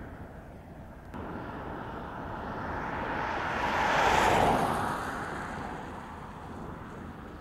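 Diesel locomotive and container freight wagons passing on the rails. The noise steps up about a second in, swells to its loudest about four seconds in as the locomotive goes by, then fades.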